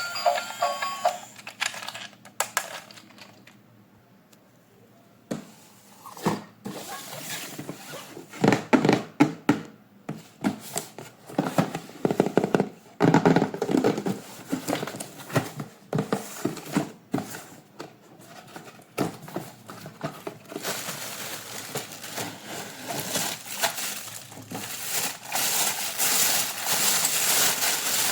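A short electronic tune cuts off about a second in. Then come irregular clicks, knocks and crinkling of toy packaging being handled and opened, densest near the end.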